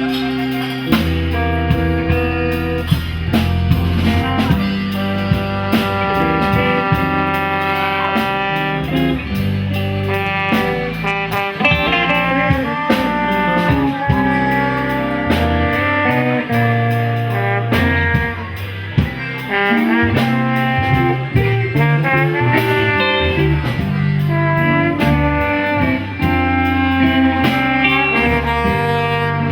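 A live band playing an instrumental passage. A saxophone carries the melody in sustained notes over bass, guitar and drum kit.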